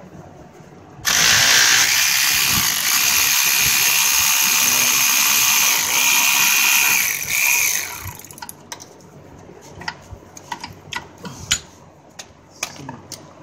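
Cordless power tool running steadily for about seven seconds as it backs out an A/C compressor mounting bolt, then stopping; a few light metallic clicks and clinks follow.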